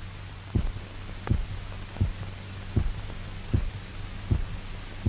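A revived dog's heart beating on its own after the artificial circulation machine is disconnected: regular lub-dub beats about 80 a minute over a steady low hum.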